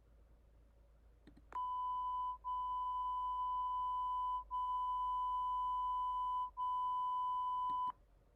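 Steady electronic test tone, a single pure high beep used to calibrate headphones for an online hearing test. It starts about a second and a half in, holds for about six seconds with three very brief dips, and cuts off near the end with a small click.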